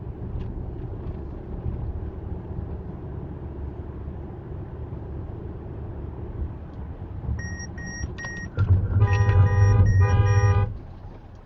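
Car on the move with a steady low road rumble. About seven seconds in come three short high beeps, then a loud car horn sounds for about two seconds in short blasts, with the beeping carrying on over it.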